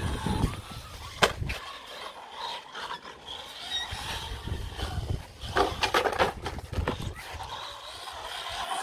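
Small brushed-motor RC short-course truck (Feiyue FY01 Fighter) driving on skatepark concrete: tyres rolling with a faint, wavering motor whine, and sharp knocks about a second in and again around the middle, as the truck hits and lands.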